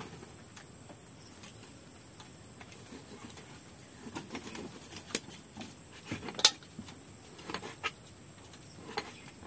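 Steady high-pitched chirring of crickets, with a scatter of sharp clicks and knocks from about four seconds in, the loudest a little after six seconds.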